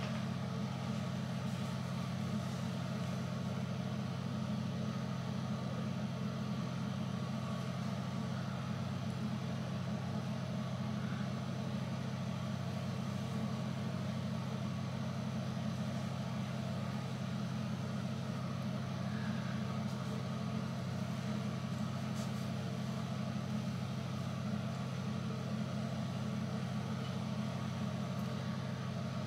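A steady low hum that holds at an even level without change.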